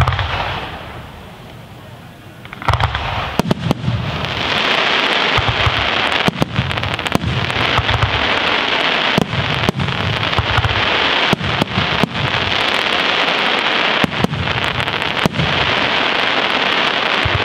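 Aerial fireworks display: a single shell burst at the start, then after about three seconds a rapid barrage of shell bursts, with dense crackling from crackling stars filling the gaps between the bangs.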